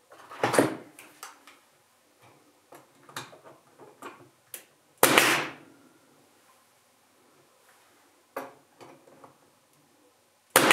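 Brad nailer firing brads into a glued poplar frame: three sharp shots, each with a short hiss, about five seconds apart, with light knocks and clicks of handling between.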